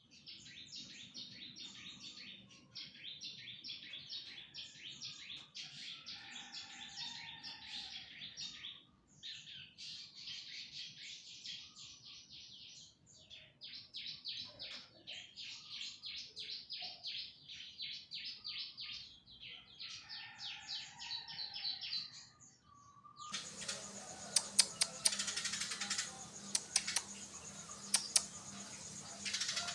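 Birds chirping in fast, dense runs of repeated high notes, with a few short pauses. About 23 seconds in it cuts to a run of sharp clicks and taps over a steady hum.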